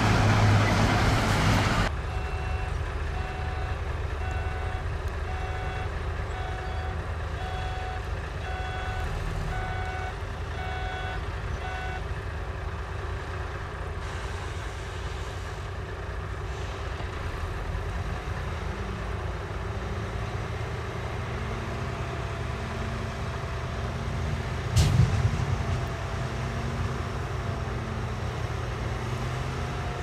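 Heavy diesel earth-moving machines running. One engine works hard and loud for the first two seconds, then drops back. A reversing alarm beeps steadily, a bit more than once a second, for about ten seconds, a lower beeping starts later, and there is one sharp loud clank about 25 seconds in.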